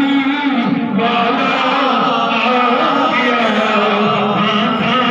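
Men's voices in devotional chanting, sung continuously and at a steady loudness.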